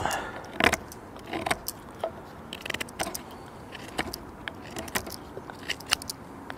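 Taxus Wisdom bushcraft knife whittling a point on a wooden tent stake: a run of short, irregular shaving scrapes as the blade takes curls off the wood, the strongest near the start.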